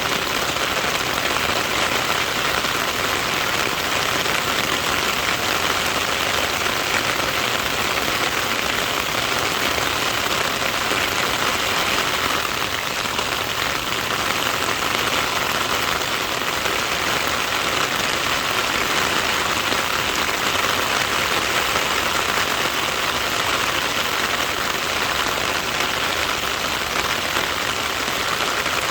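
Steady rain falling, an even unbroken hiss of rainfall with no single drops standing out.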